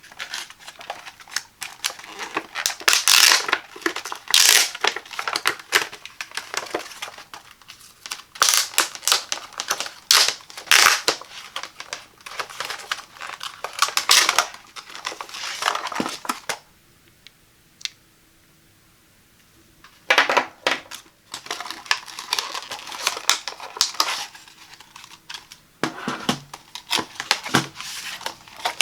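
Packaging being handled and opened: crinkling, crackling and rustling in irregular bursts with small clicks, pausing for a few seconds after the middle.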